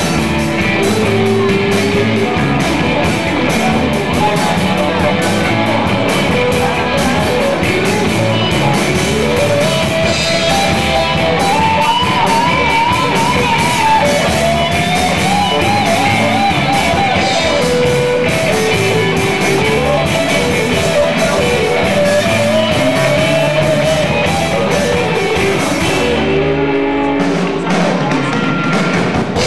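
Live rock band playing: electric guitars, bass guitar and drum kit, loud and steady. Over the band a lead line of long, wavering held notes rises and falls, most of all in the middle.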